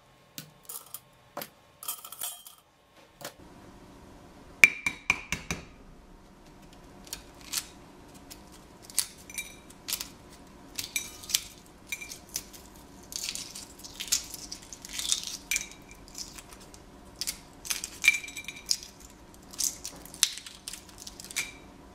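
Metal tongs clinking against a stainless steel pressure-cooker inner pot as hard-boiled eggs are lifted out, then the shell of a hard-boiled egg cracking and crackling in a long string of sharp clicks as it is broken and peeled by hand over a bowl.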